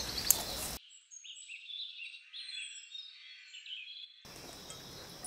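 A busy chorus of short, high chirping calls from small wild creatures, sounding thin and filtered, from about one second in until about four seconds in, with faint outdoor ambience before and after.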